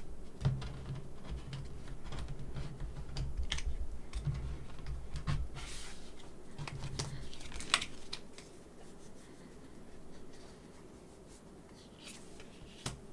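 Tarot cards handled over a wooden tabletop: a run of light clicks, taps and brief scrapes as the deck is cut and cards are drawn and laid down. The sounds thin out after about eight seconds.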